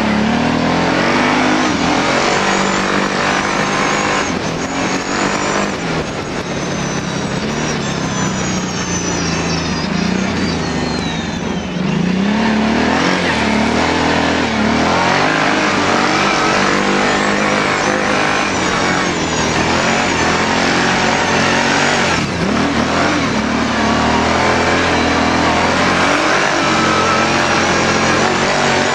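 Kawasaki Brute Force ATV engine running under way, its pitch rising and falling repeatedly as the throttle is opened and eased, over a steady rush of noise.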